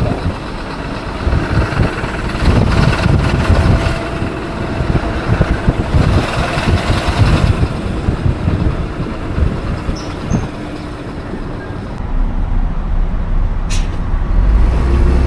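Mitsubishi 6M60 7.5L six-cylinder diesel in a 2007 Fuso FM260 truck running with an uneven knocking clatter, the sign of intermittently failing fuel injectors. The sound goes duller about three-quarters of the way in, with a single sharp click near the end.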